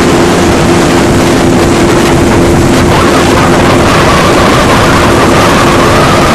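Ship's engines running steadily with a droning hum, under rushing wind noise on the microphone; a higher, slightly wavering tone joins about halfway through.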